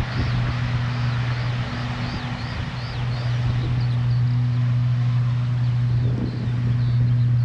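A steady low engine drone. Over it come high, repeated chirps about twice a second, which thin out after about four seconds.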